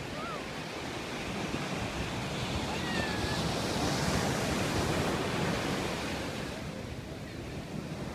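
Ocean surf breaking on a sandy beach: a steady wash of noise that swells about four seconds in, with wind rumbling on the microphone.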